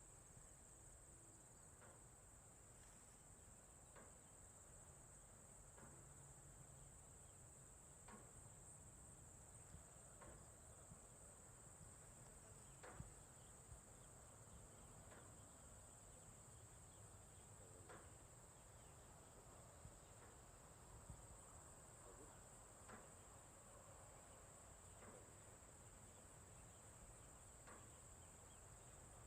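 Faint rural insect chorus: a steady, high-pitched trill that does not break. Faint short chirps or taps come through about every two seconds.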